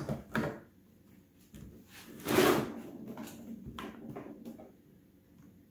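PVC pipe pieces handled on a wooden workbench: a few light knocks, a louder clattering scrape about two and a half seconds in, then several lighter clicks and knocks that die away.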